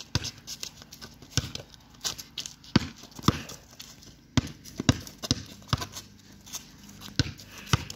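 Basketball bouncing on pavement: sharp, separate bounces, some in short runs about two a second, with gaps between them.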